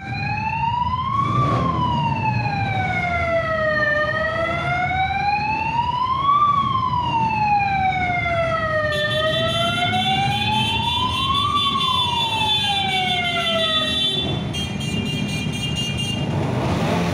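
A police motorcycle's siren wails slowly up and down, each rise and fall taking about five seconds, over the low running of motorcycle engines. The siren stops about fourteen seconds in. From about nine seconds a steady high-pitched tone sounds alongside it.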